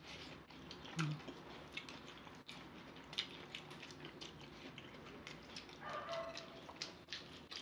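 Close-miked eating: chewing and mouth sounds, with many quick clicks of chopsticks against bowls and a pan. A brief voice sound comes about six seconds in.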